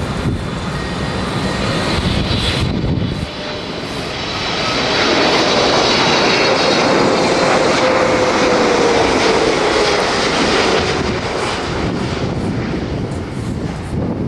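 Jet airliner's engines running as it passes close by. The noise swells about five seconds in, with a whine that falls slowly in pitch as the aircraft goes past.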